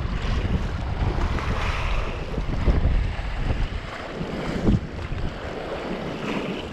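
Sea washing and splashing against rocks, with heavy wind buffeting the microphone and a sharper knock about two-thirds of the way through.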